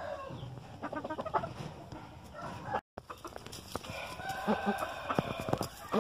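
Gamecock roosters in their pens: a drawn-out crow in the second half over short clucking calls and a few knocks. The sound cuts out for a moment about halfway through.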